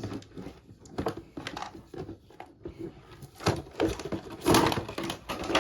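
Objects being rummaged through and moved about: a run of small knocks and clicks, with louder clatters a little past the middle.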